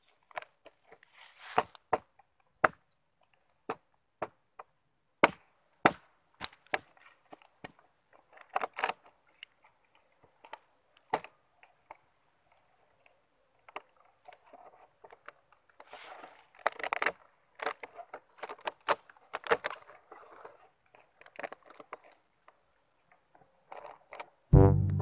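Irregular sharp knocks and clicks, like hard objects being handled or struck, with stretches of rustling about two-thirds of the way through. Brass music comes in at the very end.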